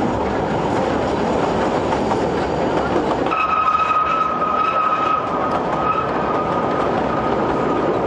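Kurobe Gorge Railway's 762 mm narrow-gauge trolley train running with a steady rumble and rattle. A little over three seconds in, a steady high-pitched wheel squeal joins and holds.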